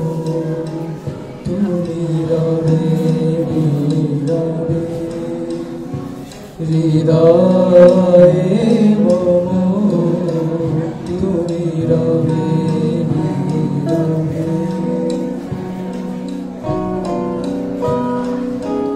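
A live band playing a song: male singing over electric guitars. It gets louder about seven seconds in.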